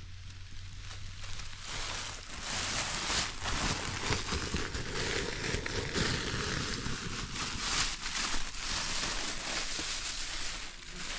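Dry crackling and rustling noise full of small irregular clicks, building up about two seconds in and carrying on steadily.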